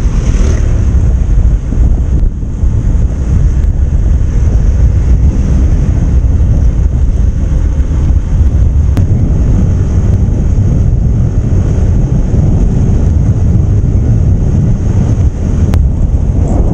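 Wind buffeting the microphone on a moving motorcycle, a loud steady rumble with the bike's engine and road noise underneath and a constant high hiss.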